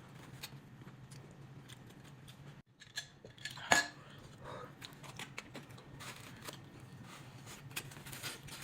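Close-up eating sounds: chewing fried meat (tassot) with scattered small wet mouth clicks and a clink of cutlery or dish. A sharp click stands out about three and three-quarter seconds in.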